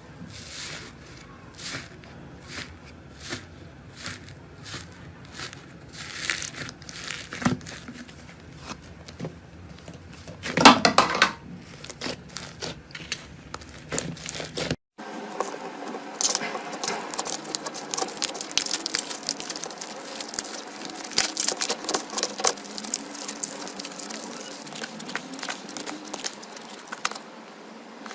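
Slime being squeezed and stretched by hand, making sticky clicks and pops. About halfway through it cuts to a denser, continuous crackling.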